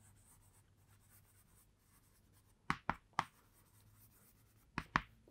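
Chalk writing on a chalkboard: short, sharp scratches and taps of the chalk against the board. There are three about halfway through and two more near the end, with little sound before them.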